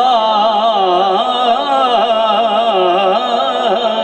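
A man's voice singing a naat into a microphone, holding one long, ornamented line whose pitch wavers and turns without a break.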